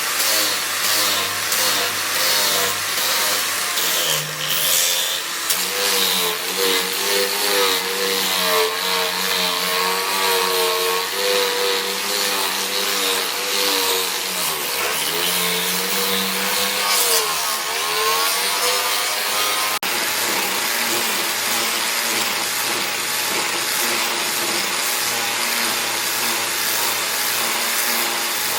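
An electric grinding power tool runs with a rasping noise, its motor pitch dipping and recovering several times as work is pressed against it; after about twenty seconds it runs more steadily.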